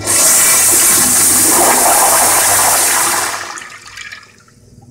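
Commercial toilet with a chrome flushometer valve flushing: a loud rush of water through the bowl for about three seconds, then tapering off over the next second.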